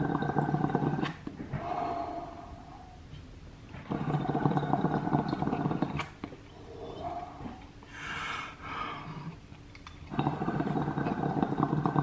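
Water bubbling in a glass recycler dab rig as a dab is drawn through it, in three strong pulls about four seconds apart with softer bubbling between them.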